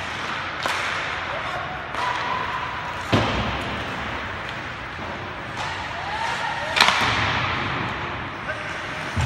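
Ice hockey play: sticks and puck clacking on the ice and against the boards, a string of sharp impacts over a steady noise bed. The two biggest hits come about three seconds in, a heavier thud, and just before seven seconds, a sharp crack.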